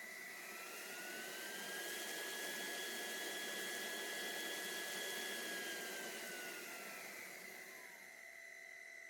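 Roborock H60 Ultra cordless stick vacuum running, its motor whine rising in pitch over the first couple of seconds, holding steady with a rush of airflow, then falling away near the end as it winds down.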